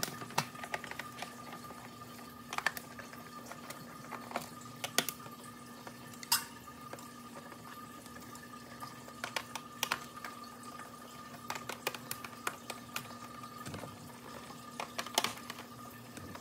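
Screwdriver backing screws out of a plastic plaque back. Small irregular clicks and taps of metal on plastic are scattered throughout, over a faint steady hum.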